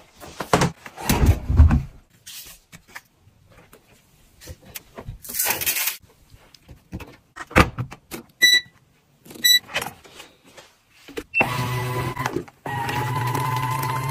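Laundry being handled at a washing machine: clothes and door thumps, then two short electronic beeps from the front-loader's control panel as its power button is pressed. Near the end a washing machine motor starts a steady hum as it churns the wash.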